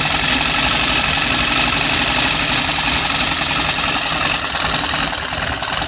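Belt-driven sewing machine running steadily, its mechanism making a dense, even mechanical rattle.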